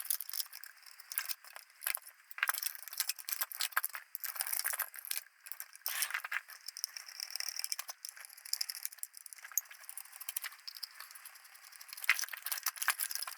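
Small tools and metal parts clicking, clinking and rattling as a compact electronic camera unit is taken apart by hand, in a dense, irregular run of short knocks.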